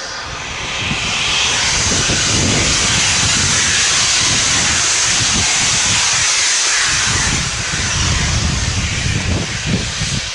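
Rebuilt Merchant Navy class 4-6-2 steam locomotive 35028 'Clan Line' approaching at speed: a loud rushing hiss of steam over a fast, rhythmic low rumble. The hiss eases about two-thirds of the way through, leaving sharper, uneven low beats as the engine draws near.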